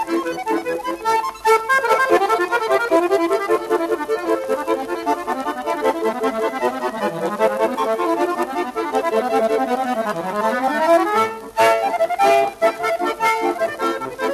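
Instrumental background music, a tune with quick runs of notes that sweep down and back up twice, with a brief break near the end.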